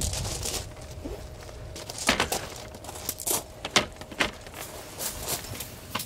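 Camping gear being handled: a string of light knocks and clatters with rustling between them, as a folding plastic crate and other gear are lifted and moved.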